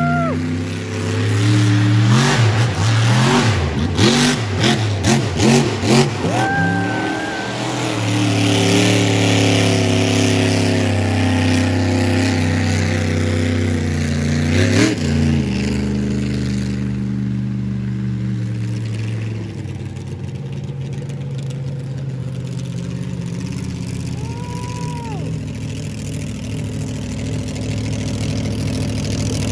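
A 1,500-horsepower competition monster truck's engine revving hard in a string of quick throttle blips a couple of seconds in, then holding high revs as the truck drives across the dirt. Its pitch rises sharply about halfway through, then it eases off and runs lower and quieter to the end.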